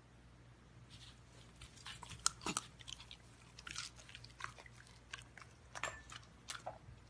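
A beagle puppy chewing, with irregular crisp crunches starting about a second in.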